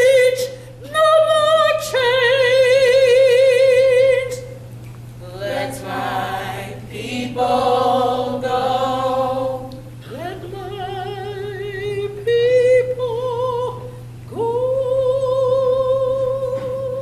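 A high solo voice singing a spiritual a cappella, with wide vibrato and long held notes. A steady low hum runs underneath.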